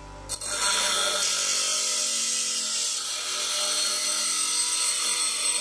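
Parkside PDOS 200 double bench grinder's abrasive wheel grinding the head of a small steel nail held in pliers: a loud, steady, gritty hiss that starts a moment in, over the faint hum of the grinder's induction motor. The nail is pressed hard against the wheel to load the 200 W motor.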